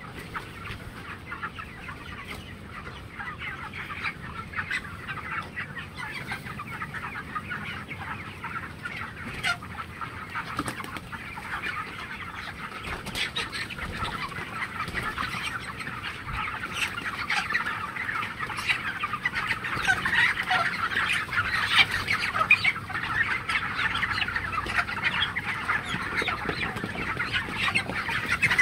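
A large flock of 27-day-old broiler chickens clucking and chattering continuously, many overlapping calls, growing louder in the second half.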